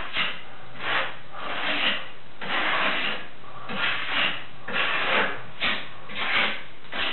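Trowel scraping sanded grout onto a wall substrate in repeated strokes, about one a second, keying in a thin bond coat for setting glass tile.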